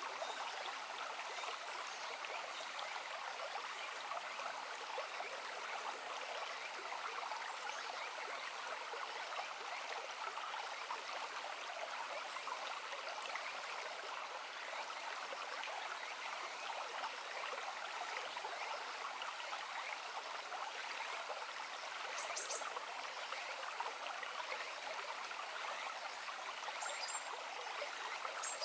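Shallow stream babbling and trickling steadily, an even water noise with no pauses.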